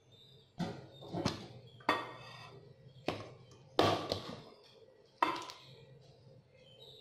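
Kitchenware being moved and set down on a tabletop: a large metal mixing bowl pushed aside and a round wooden chopping board put in place. About six sharp knocks and clatters, a few with a brief metallic ring.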